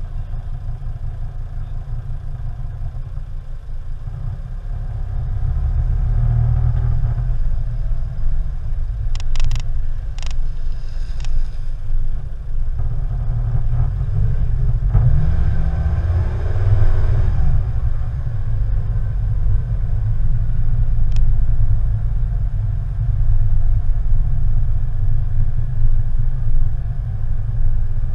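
Low rumble of a car pulling away from a standstill and driving along a street, heard through a camera mounted on the car. It gets louder about four to six seconds in as the car moves off, with a few sharp clicks about nine to ten seconds in.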